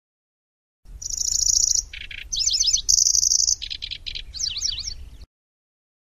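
Pallas's grasshopper warbler (kecici belalang) singing a varied, fast phrase lasting about four seconds: high buzzy trills alternate with a lower rattle, quick sharp chipping notes and falling slurred notes near the end. It starts just under a second in and cuts off abruptly.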